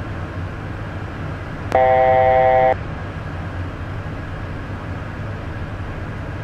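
Steady in-flight drone inside the cockpit of a Beechcraft Premier 1A business jet. Nearly two seconds in, a click is followed by a loud, steady electronic tone lasting about a second.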